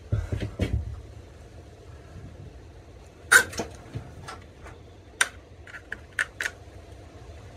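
Sharp clicks and knocks of battery leads and clamps being handled on the terminals of a lead-acid battery bank while it is rewired from 12 to 24 volts. There are low thumps in the first second, the loudest click a little over three seconds in, and a run of smaller clicks later.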